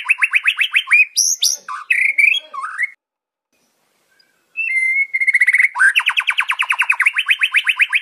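White-rumped shama (murai batu) singing: a fast trill of repeated notes, about ten a second, breaking into a few varied whistled phrases. The song cuts off to complete silence for about a second and a half in the middle, then resumes with a held whistle and the fast trill again.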